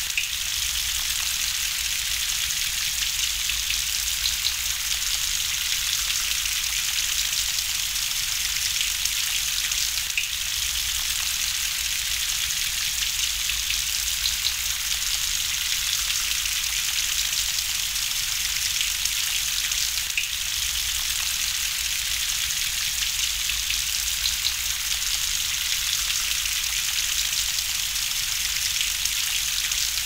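Steady gentle rain: an even, dense patter of drops with no thunder.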